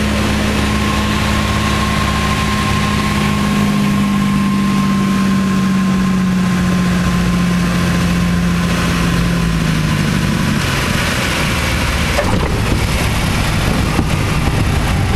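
Piper Turbo Arrow's turbocharged six-cylinder engine and propeller at low power, heard inside the cabin during landing and rollout. The engine note drops slowly in pitch over about the first ten seconds and then holds steady.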